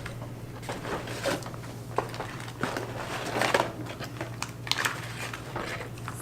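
Paper food packaging and napkins being handled: intermittent rustling and crinkling with small clicks and light knocks, over a steady low hum.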